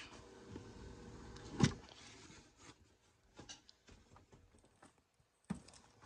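Cardboard box being handled and turned over on a tabletop: soft rubbing of cardboard, a single knock about a second and a half in, then a few faint taps.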